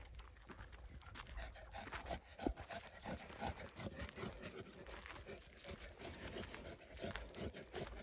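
A Saint Bernard panting as it walks, with a steady run of footsteps crunching on a gravel path.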